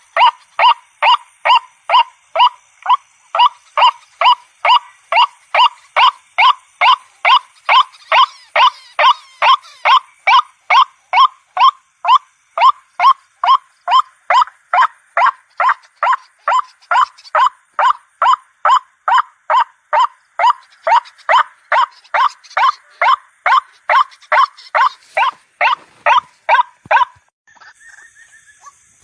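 White-breasted waterhen (ruak-ruak) calling in a steady, evenly repeated series of loud notes, about two a second. The calls pause about 27 seconds in and start again near the end.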